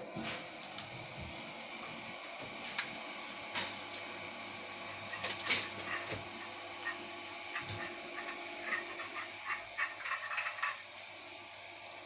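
Small metal parts clicking and rattling during hand work on a ceiling fan, over a steady hum, with a quick run of clicks in the later part.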